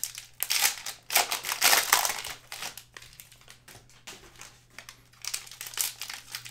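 Plastic wrapper of a trading-card pack being torn open and crinkled by hand, in bursts of crinkling that are densest in the first two and a half seconds and come back near the end.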